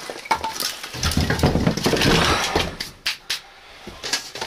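Split firewood knocking and clattering as pieces are pulled from a metal bucket of logs, with a dense stretch of rattling about a second in and a few sharp knocks near the end.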